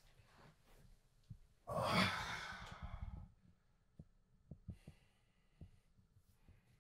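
A man's heavy sigh: one long breathy exhale about two seconds in, fading over a second or so, followed by a few faint ticks.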